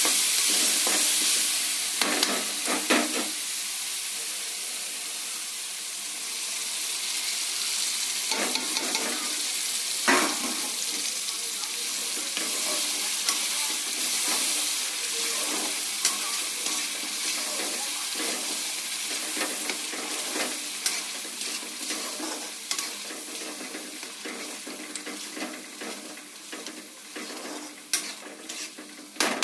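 Food sizzling in a cooking pan as a spoon stirs it, with scattered scrapes and knocks of the spoon against the pan. The sizzle is loudest at the start and fades away gradually.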